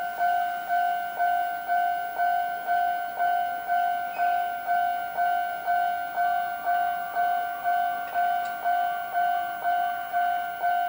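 Railway level-crossing alarm ringing: an even electronic ding at two fixed pitches, about two strikes a second.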